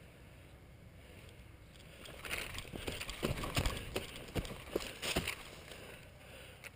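Footsteps crunching quickly over dry leaf litter and twigs, with several sharp knocks, about two seconds in and lasting some three seconds.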